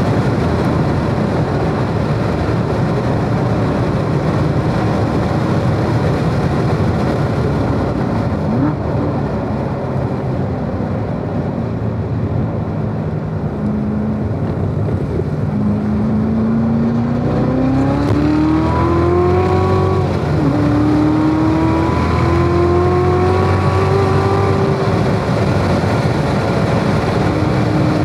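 Chevrolet Corvette Z06's supercharged V8 on track under heavy wind and tyre noise: the car slows for a tight corner, then accelerates hard out of it, the engine note climbing, dropping with an upshift about twenty seconds in, and climbing again.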